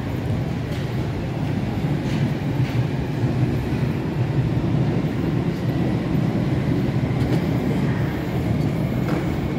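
London Underground Jubilee line 1996 Stock train running past on the track: a steady low rumble of wheels and traction, with a faint high whine and a few light clicks.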